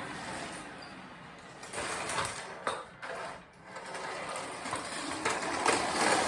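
Vacuum cleaner running, its level uneven, with two brief drops about halfway through.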